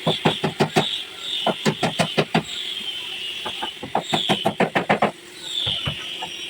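Rapid hammering on wood: three bursts of quick, sharp knocks, about seven a second, with short pauses between them.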